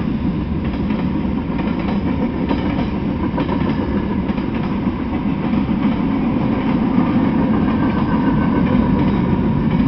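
Freight train cars rolling past: a steady, loud rumble of steel wheels on rail, with a light clicking of wheels over the rail joints.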